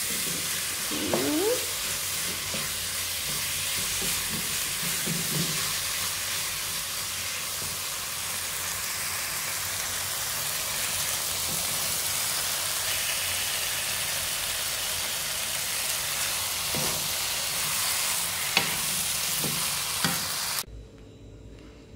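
Beef serundeng frying in a pan: a steady sizzle as the last of the liquid cooks off and the oil comes out, with a wooden spatula stirring and now and then scraping against the pan. The sizzle cuts off suddenly near the end.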